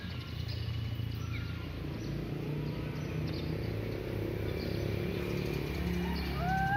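A motor vehicle's engine running, a steady low hum that grows a little louder. Near the end there is a short animal call that rises and falls in pitch.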